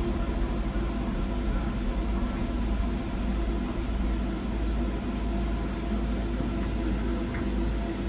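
Docklands Light Railway train running along the track, heard from inside the carriage: a steady rumble of wheels on rail with a low, even motor hum.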